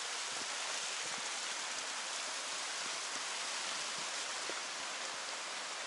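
Water running over rocks in a small mountain stream: a steady rushing hiss.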